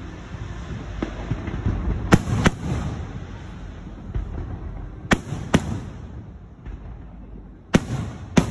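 Aerial fireworks display: shells bursting in three pairs of sharp bangs, each pair a fraction of a second apart, over a steady low rumble of the display.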